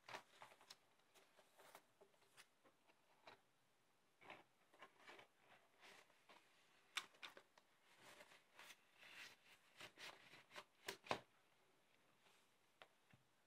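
Faint handling noise of a vinyl record, its paper inner sleeve and cardboard album jackets: soft rustles with scattered taps and knocks, the sharpest knock about eleven seconds in.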